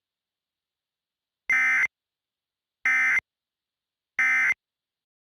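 Emergency Alert System end-of-message data bursts: three short, identical screeching digital tones about 1.3 seconds apart, signalling the end of the alert.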